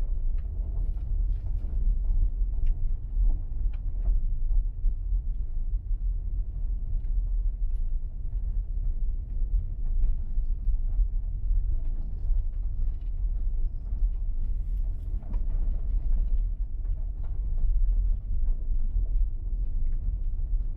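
A vehicle driving on a gravel dirt road: a steady low rumble of engine and tyres, with faint scattered ticks and rattles.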